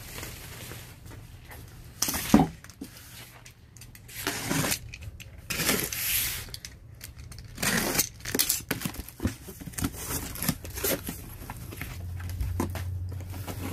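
A corrugated cardboard carton being handled and opened: a sharp thump about two seconds in, then scuffs, rustles and tearing as the packing tape is slit and the flaps are pulled back.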